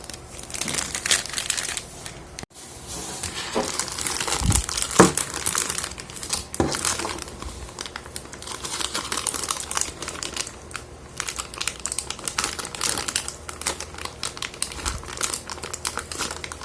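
Plastic packaging crinkling and crackling as it is handled and opened, in dense, irregular crackles, briefly cutting out about two and a half seconds in.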